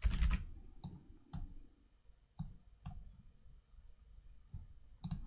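Computer mouse clicks: about half a dozen short, sharp single clicks spaced irregularly, roughly half a second to a second apart, with a heavier knock at the very start.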